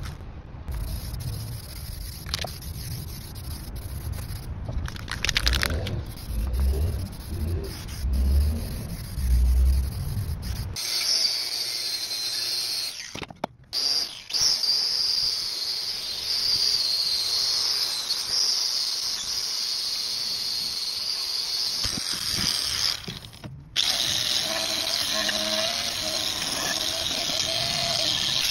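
Angle grinder fitted with a wire wheel, stripping rust from the cast iron of an old printing press. Its high steady whine starts about eleven seconds in and breaks off briefly twice. Before that there is low rumbling and knocking.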